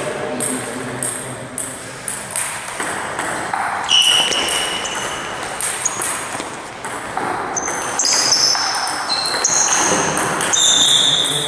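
Table tennis ball clicking repeatedly off the table and bats, a sharp tick every fraction of a second, with short high-pitched squeaks mixed in during the second half.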